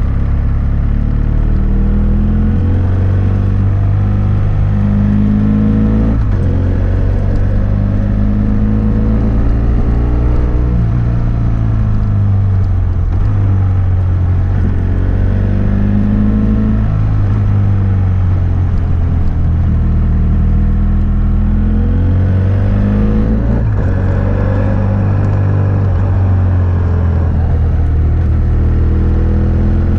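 BMW F800S parallel-twin engine through a GPR Furore aftermarket exhaust with its dB killer fitted, under way on the road: the revs climb and fall again and again as the rider accelerates and eases off, with a few quick breaks in the note from gear changes.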